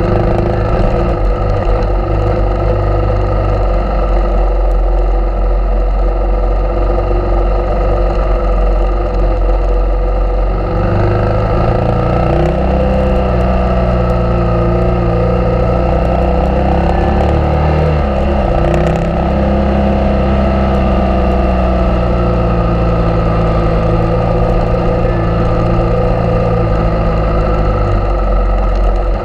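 Suzuki DR650's single-cylinder four-stroke engine running under way on a dirt trail. The engine note is steady at first, then rises and falls with the throttle from about eleven seconds in.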